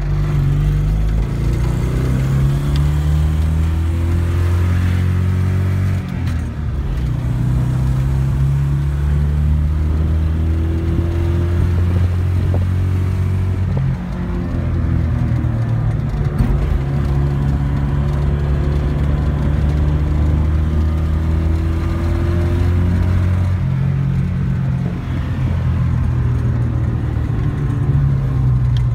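Honda TN-V kei truck's 360cc air-cooled two-cylinder engine, heard from inside the cab while driving. The engine note climbs in pitch through long pulls, dropping back at short breaks about 6, 14 and 24 seconds in as it changes gear.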